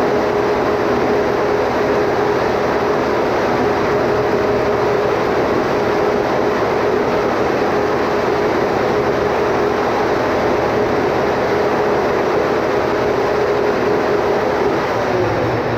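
Standby generator's engine running steadily at speed, a constant hum over a broad rushing noise; the hum drops slightly in pitch near the end.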